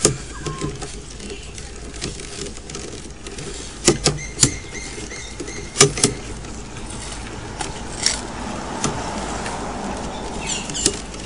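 Drain inspection camera equipment being fed up a sewer line: irregular sharp clicks and knocks over a steady low hum, most of the knocks falling in the middle.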